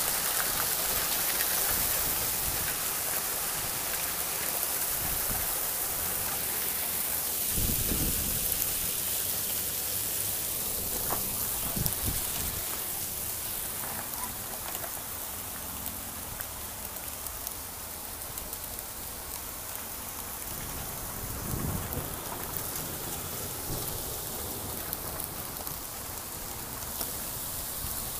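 Hail and rain pelting down in a steady hiss that gradually eases, with a couple of short low rumbles.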